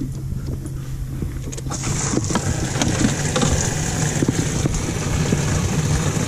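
A boat's engine running steadily with a low hum. A rushing hiss comes up about two seconds in, and scattered knocks sound from the fish being handled in the boat.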